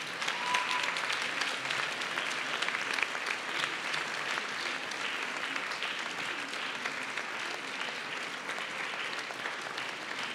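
Audience and models applauding, many hands clapping steadily.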